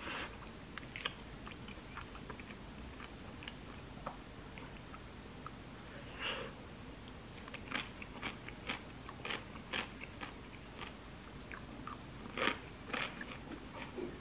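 Close-up mouth sounds of eating, with a dense run of crisp crunches in the second half as pickled cucumber and cabbage is bitten and chewed.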